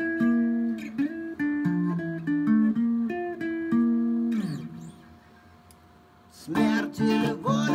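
Ibanez electric guitar played through a small amplifier: a picked single-note melody that ends about four seconds in with a note sliding down in pitch. After a short pause, fuller chord-like playing starts near the end.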